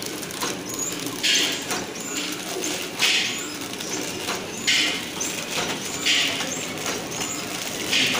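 Tabletop flow wrap machine running through its packing cycle. A short hiss comes about every 1.6 seconds, five times, with sharp clicks in between, over a steady mechanical hum.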